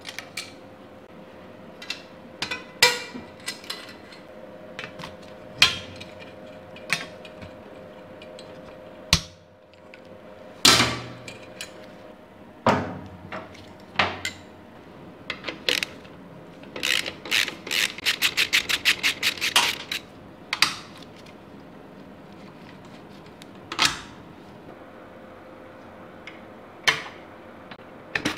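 Metal hand tools clinking and clanking against a steel checker-plate workbench and a motorcycle's bolts, with a ratchet clicking off rapid, even ticks for about three seconds past the middle.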